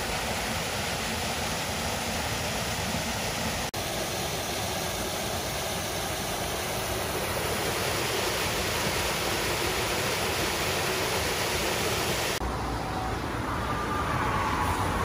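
Steady rush of stormwater pouring through the concrete outlet structure of a dry pond, draining rainwater to the creek. There is a short break about four seconds in, and near the end the sound changes to a swollen creek flowing.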